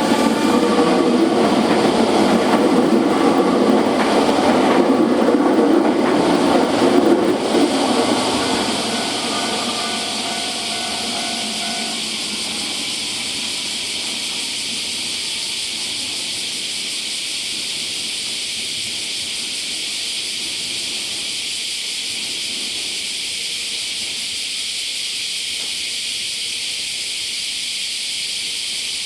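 A Nankai train running over the level crossing, loud for the first eight seconds or so with some pitched ringing from the wheels and rails, then fading away. After that a steady high hiss continues.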